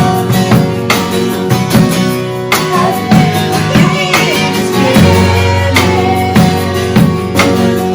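Instrumental worship-band music, led by a strummed acoustic guitar over held notes, with no singing.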